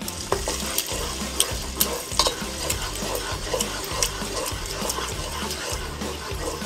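A spatula stirring a wet mixture in a frying pan, scraping and ticking against the pan over a steady sizzle, with a low steady hum underneath.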